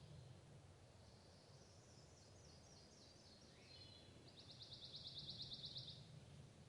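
A sparrow singing: a run of high notes stepping down in pitch, then a fast, even trill, the loudest part of the song, a little over four seconds in.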